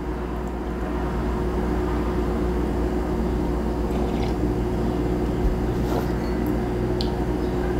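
Steady low mechanical hum with a constant tone, with a few faint clicks about four, six and seven seconds in.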